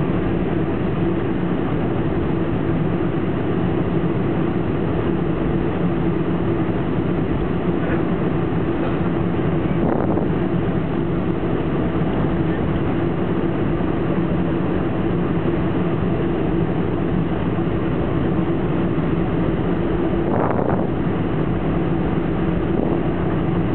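Cabin noise inside a Boeing 747-400 taxiing on the ground: the jet engines at low thrust make a steady hum with two low, even tones, alongside the rush of air in the cabin.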